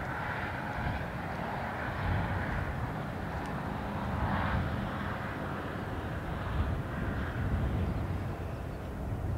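Distant freight train's diesel locomotives approaching, heard as a steady low rumble with a faint higher hiss.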